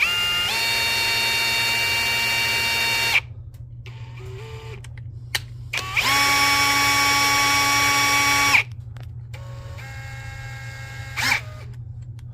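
Power tool motor whining at a steady pitch in two long runs of about three seconds each, each stepping up in pitch as it spins up, then a shorter, fainter run near the end.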